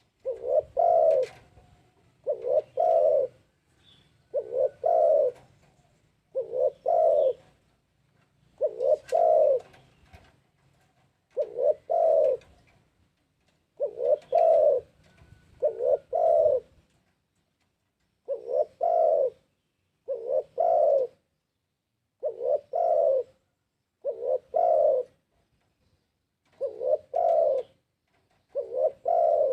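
Spotted dove (tekukur) cooing, a short paired coo repeated about every two seconds, over and over.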